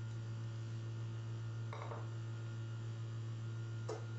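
Steady low electrical hum, with two brief soft rustling noises about two seconds and four seconds in.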